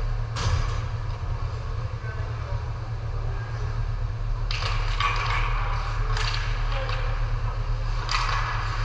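Ice hockey game in progress: a steady low hum with several short scraping noises, about half a second in, again around five and six seconds in, and near the end.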